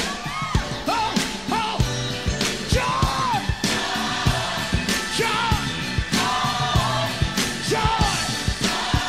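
Live gospel music: a singer's voice sliding and bending in pitch over a band with a steady drum beat.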